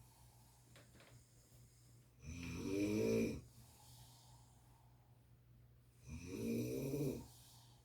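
A sleeping person snoring: two snores about four seconds apart, each lasting about a second.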